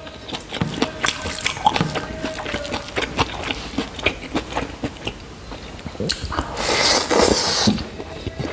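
Close-miked eating by hand: wet squelching of fingers mixing rice with pork curry, chewing and lip smacks as a string of short clicks. About seven seconds in comes a louder, noisier stretch of about a second.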